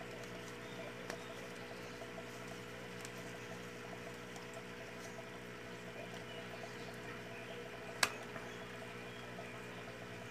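A hot glue gun's tip is worked along glued mosquito screen on styrofoam, giving faint crackling and soft scratching over a low steady hum. There is one sharp click about eight seconds in.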